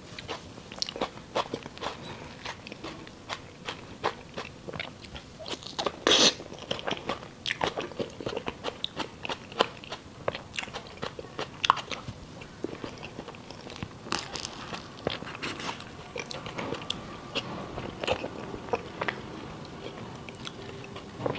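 Close-miked chewing and mouth clicks of someone eating a soft persimmon thousand-layer cream cake, many small sharp clicks with a louder one a little after six seconds.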